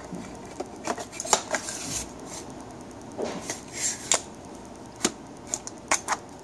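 Metal cover can being slid back over a solid-state CPMAS NMR probe: irregular metallic clinks and knocks, with a short scrape about halfway through.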